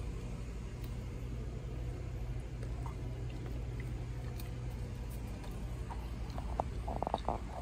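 A basset hound's wet, drooly mouth smacking: a quick cluster of smacks near the end as it eats a green bean, over a steady low hum.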